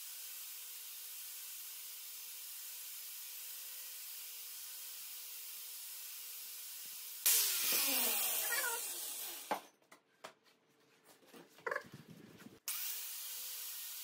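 Corded angle grinder running freely with a steady whine, then a loud burst of work on steel followed by the motor spinning down with a falling pitch. A few clicks and knocks come as the tool and tubing are handled, and the grinder starts up again near the end.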